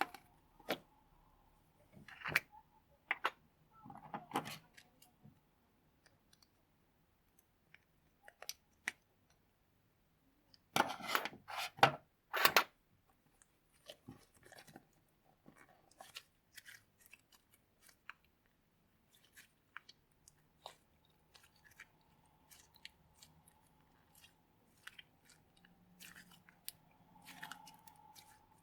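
Slime being worked by hand: scattered sticky clicks and pops, with a denser run of louder crackles about eleven seconds in.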